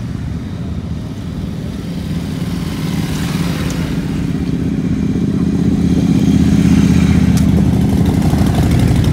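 Large cruiser motorcycle's engine running at low riding speed, growing steadily louder as it comes up close, loudest in the last few seconds.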